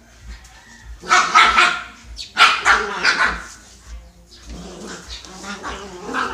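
Dogs barking as they play-fight, in two loud bouts of rapid barks about a second in and just before the middle, then quieter.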